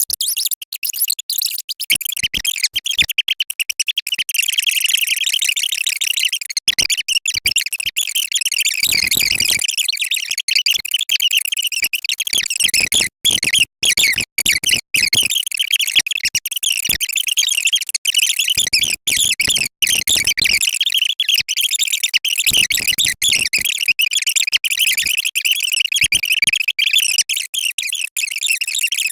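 A rapid-fire jumble of many different sound effects played back to back at ten times normal speed, blurring into a mostly high-pitched, electronic-sounding stream that changes every instant, with brief dropouts.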